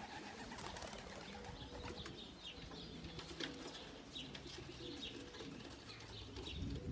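Racing pigeons cooing softly in low, drawn-out phrases, with faint short high chirps scattered through.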